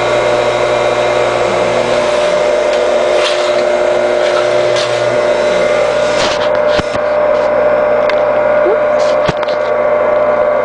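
Delta/Rockwell 1.5–2 HP single-phase capacitor-start electric motor, taken from a table saw, running steadily at speed with a constant hum. A few light clicks come about two-thirds of the way through.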